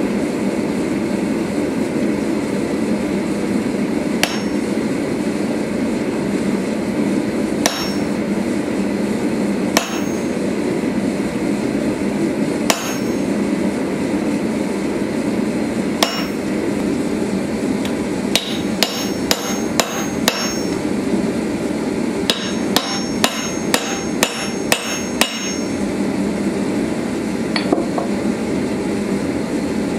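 A hand hammer strikes a handled top tool held on a red-hot steel sword-guard bar on the anvil, each blow ringing metallically. At first the blows come singly, a few seconds apart. Later in the second half come two quick runs of blows. Under it all is a steady low rushing background noise.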